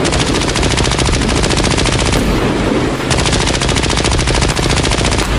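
Sustained rapid machine-gun fire sound effect, an unbroken stream of shots.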